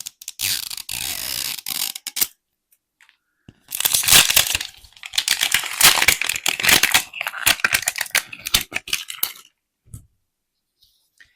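Plastic wrapping on a Mini Brands capsule ball being torn open and crinkled: a short rustling tear, then several seconds of dense crackling as the wrap is peeled away.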